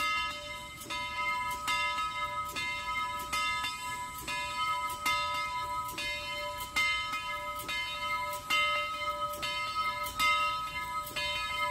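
A railroad bell ringing steadily, struck a little more than once a second with its clear tones ringing on between strikes.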